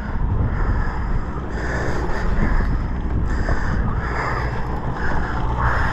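Steady low hum of a sportfishing boat's engine, with wind rushing over the microphone and sea wash.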